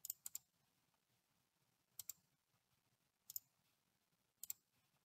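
Computer mouse button clicking: five short double ticks spread unevenly, the first two close together at the start, then about every second and a bit.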